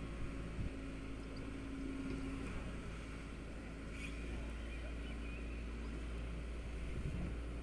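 Engine of a demolition machine running steadily, a low hum that holds an even pitch with no crashes or impacts.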